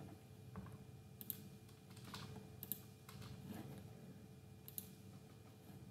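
Faint computer keyboard, a handful of separate key presses spaced irregularly, over a low steady room hum.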